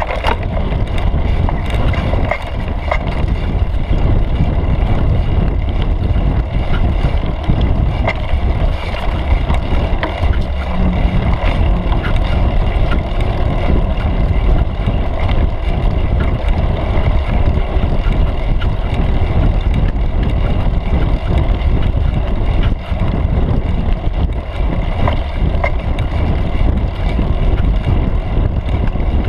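Mountain bike rolling over a dirt forest trail, picked up through a camera clamped to the seat post: a heavy, steady rumble of tyre and frame vibration with wind buffeting the microphone and scattered small rattles and clicks.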